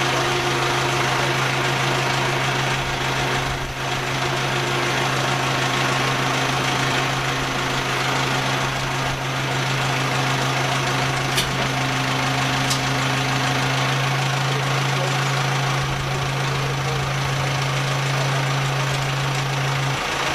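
Sellick tow tractor's engine running at a steady idle, a constant low hum that holds the same pitch throughout. Two faint sharp clicks come a little past halfway, about a second apart.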